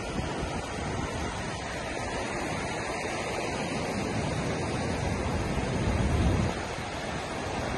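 Ocean surf washing steadily onto a sandy beach, with wind rumbling on the microphone in gusts, strongest about six seconds in.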